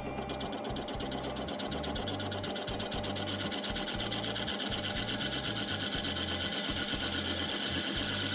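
Wood lathe spinning a wooden bowl while a tool cuts into or works its base, with a rapid, even ticking and a hiss that grows stronger toward the end.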